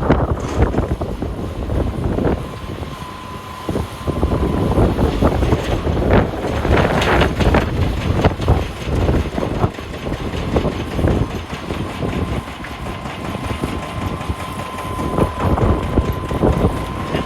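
Heavy wheel loader's diesel engine running under load, with a steady high whine that comes and goes and scattered knocks and clatter from rocks being handled.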